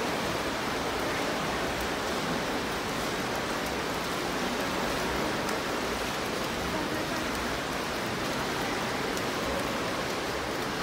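Indoor swimming pool ambience: a steady wash of water noise from swimmers splashing through their strokes in the lanes.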